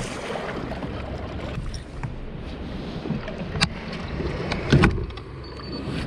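Water splashing and sloshing against a kayak's hull as it is paddled out through small surf, with a sharp knock a little past halfway and a louder thump about a second later.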